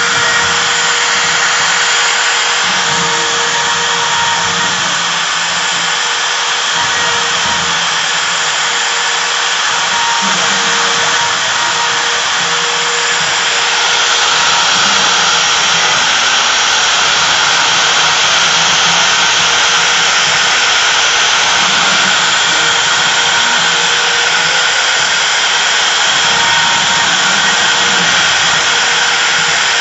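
CNC router spindle running steadily, a little louder from about halfway through.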